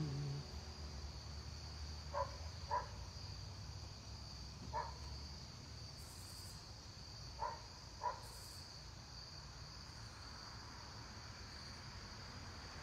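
Crickets chirring in a continuous high trill. The last held keyboard note of a hymn dies away in the first half second. A few short, faint chirps stand out: a pair about two seconds in, one near five seconds, and another pair near seven and a half seconds.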